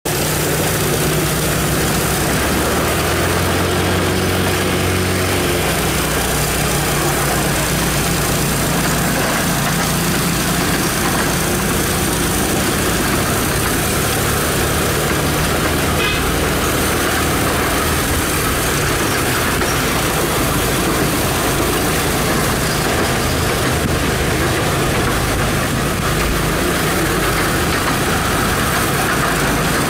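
Ride aboard a small narrow-gauge sightseeing trolley car: the steady, loud running noise of its wheels on the rails and its drive as it travels along the track.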